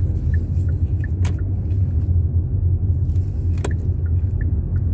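Steady low rumble of a car heard from inside the cabin, with a light regular ticking a little over twice a second. Two sharp clicks come about a second in and again past three and a half seconds.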